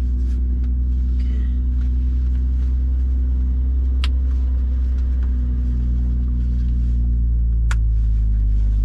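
Car engine idling with the air conditioning running, a steady low rumble heard from inside the cabin. Two sharp clicks come about four seconds in and near the end.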